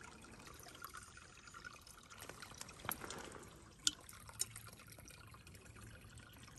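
Faint steady trickle of a shallow, slow-moving brook, with three sharp clicks around the middle as metal tweezers knock against a glass jar while a plant stem is set into it.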